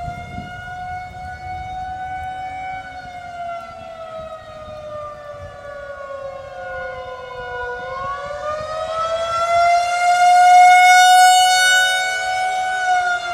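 Outdoor tornado warning siren wailing: its pitch sinks slowly, climbs back about eight seconds in, then holds, growing loudest a couple of seconds later. It is sounding a tornado warning.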